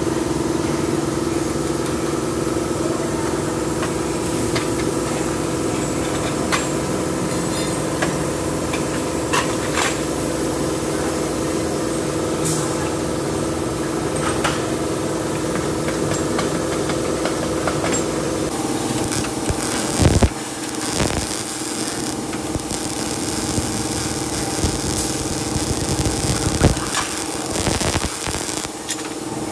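Workshop machinery noise in a metal-fabrication shop: a steady mechanical hum with scattered clanks and knocks of metal. About two-thirds of the way in the sound changes, with a few louder knocks.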